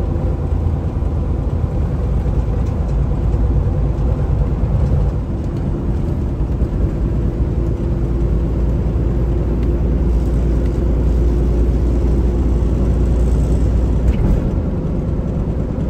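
Cab of a Kenworth semi-truck at highway speed: a steady low drone of engine and road rumble.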